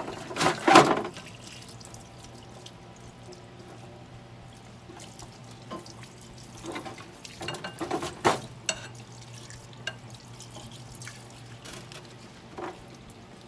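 Parts washer running: solvent pouring from the flexible nozzle and splashing over a brake drum and hub, over a steady low pump hum. Scrubbing and clinks of metal parts being handled in the tray, with louder clatters about a second in and again around eight seconds.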